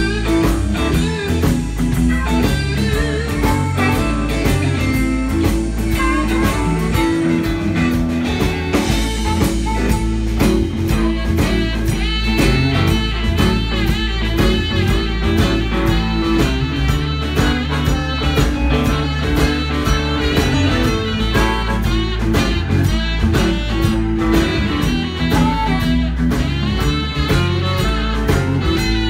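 Live blues band playing an instrumental passage: harmonica wailing through a microphone over electric guitar, keyboard and drum kit, with saxophones joining in.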